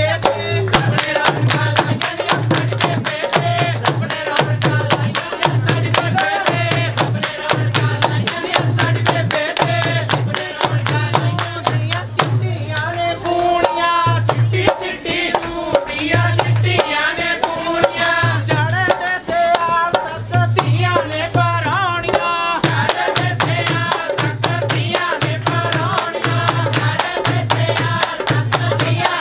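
Punjabi folk wedding song: singing over a steady hand-drum beat with quick rhythmic hand clapping.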